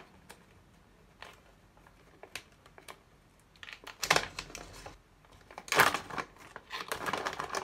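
Plastic bag of mixed nuts being opened and handled, crinkling: a few faint ticks at first, then two louder bursts of crinkling about four and six seconds in.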